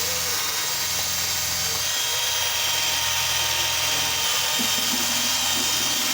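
Electric drill running steadily with an abrasive wheel, scouring rust from a cast iron tea kettle with a dense, hissing grind.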